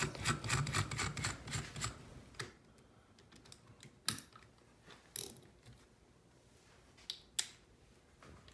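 Small clicks and knocks from tools being handled on a workbench: a quick clatter in the first two seconds, then about half a dozen separate sharp knocks as a cordless drill is picked up and readied.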